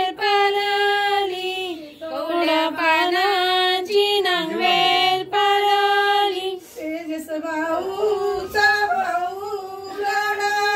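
A high woman's voice singing a song, holding long, steady notes with glides between them.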